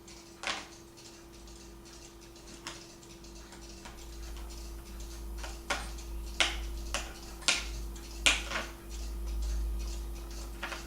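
Irregular light clicks and taps, sharper and more frequent in the second half, over a faint steady hum.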